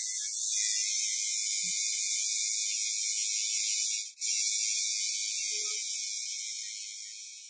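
Marker-writing sound effect: a steady, high scratchy hiss of pen on board. It breaks off briefly about four seconds in, then fades out near the end.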